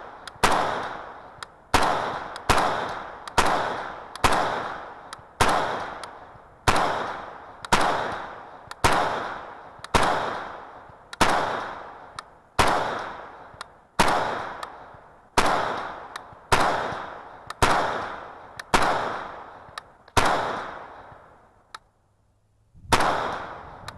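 AMD-63 rifle, a Hungarian AK-pattern rifle in 7.62×39, fired in steady semi-automatic shots at about one and a half shots a second, each sharp crack trailing off in a long echo. The firing breaks off for about two seconds, then one last shot comes near the end.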